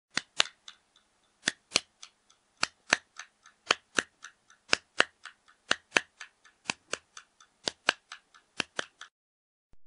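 Rhythmic dry clicking with no voice or music. Pairs of loud clicks about a quarter second apart repeat roughly once a second, with softer ticks in between, and the clicking stops about nine seconds in.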